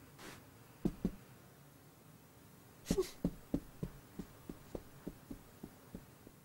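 Cartoon sound effects of a cat's soft padded footsteps: two soft thuds about a second in, then from about three seconds a quick run of steps, about three a second, fading away as the cat walks off.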